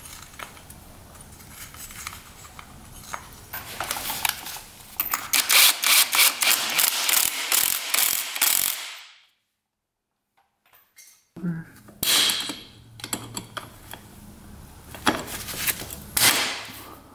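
Ratchet wrench clicking in fast runs as it spins down and tightens the clutch inner-hub nut, with a break of silence about halfway through.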